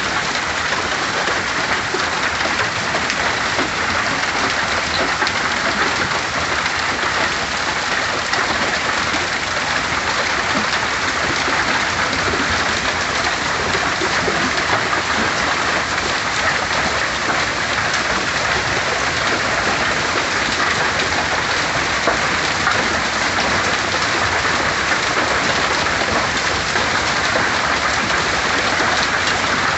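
Hailstorm with heavy rain pelting down steadily, a dense patter of countless small impacts.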